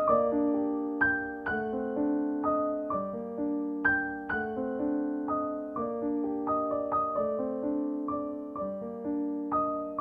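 Background music: a gentle piano melody of struck notes, each fading after it is played, with chords held beneath.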